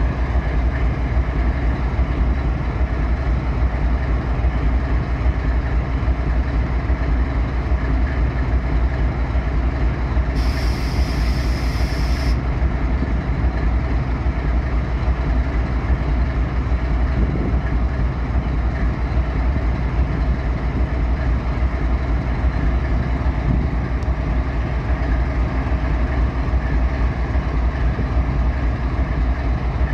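GE ES44AC diesel-electric locomotive idling with a steady deep rumble from its GEVO-12 four-stroke V12 diesel engine. About ten seconds in, a hiss of compressed air starts abruptly, lasts about two seconds and cuts off.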